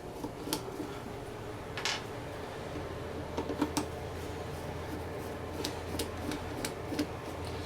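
Light, scattered clicks and taps of a screwdriver working small Phillips-head screws out of the mini mill's rubber guards. A faint low hum comes in about three seconds in.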